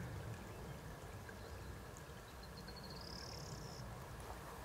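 Faint outdoor ambience: a steady low rumble, with one high bird call about three seconds in, a quick run of notes rising into a short trill.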